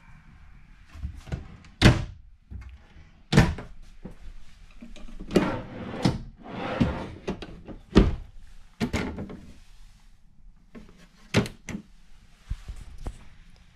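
A series of irregular sharp thunks and knocks, about six loud ones, the strongest about two seconds in and again about eight seconds in, with rustling handling noise between them.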